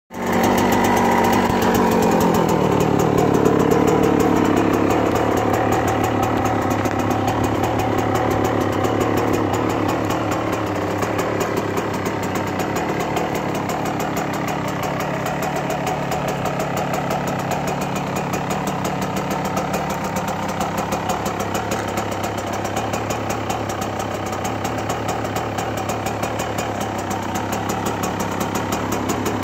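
Stock 1997 Yamaha YZ125's single-cylinder two-stroke engine running. Its pitch shifts over the first few seconds, then it settles into a steady idle.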